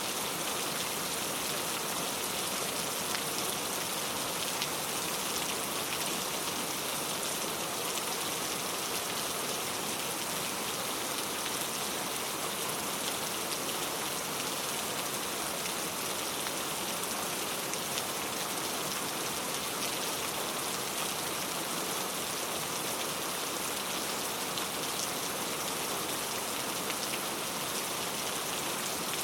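Steady rain falling and pattering on a surface, with no thunder, an even hiss with scattered faint drop ticks.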